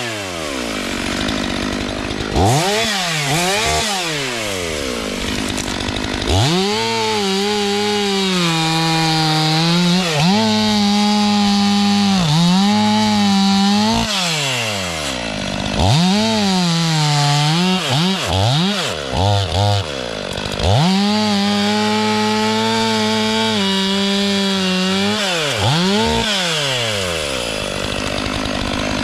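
Two-stroke STIHL MS 500i chainsaw revving up and down again and again, holding at full speed for a few seconds at a time as it cuts through wood.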